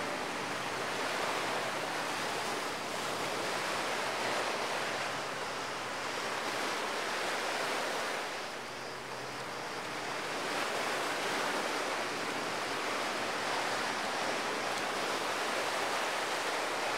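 Sea waves washing on a shore: a steady rushing noise that swells and eases, dipping briefly about halfway through.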